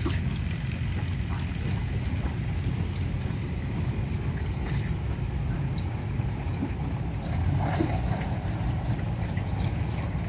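Antique steam traction engines running as they drive past: a steady low rumble.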